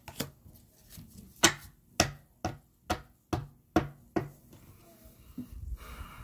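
Tarot cards being handled and laid down on a hard surface: a string of sharp taps and knocks, about two a second, dying away near the end.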